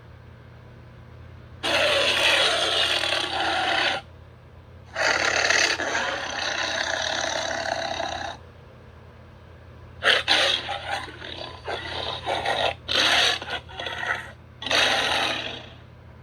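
Cheetor sound effects from Transformers: Rise of the Beasts, rough, growl-like noises: two long bursts of about two and three seconds, then a run of short, choppy ones over a faint steady hum.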